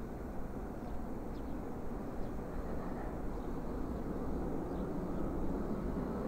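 Airbus A380 on final approach, its four Rolls-Royce Trent 900 turbofans heard as a steady low jet rumble that swells slightly toward the end as the airliner draws nearer.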